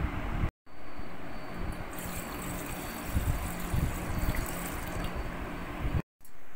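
A stream of water pouring into a stainless steel pot, splashing steadily as it fills, and cutting off suddenly near the end.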